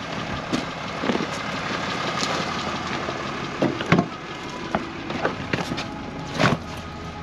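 Footsteps crunching on gravel up to a pickup truck, then the rear door handle clicks and the door latch releases about four seconds in, with another knock as the door swings open, over a steady hum.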